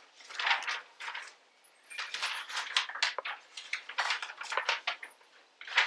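Drink poured from a jug into a metal tankard, followed by a run of light clinks, rattles and knocks as the metal cups are handled and passed across.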